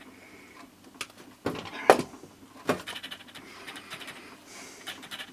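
Hands handling small wiring parts at a workbench: a few sharp clicks and knocks, the loudest just before two seconds in, with rustling between.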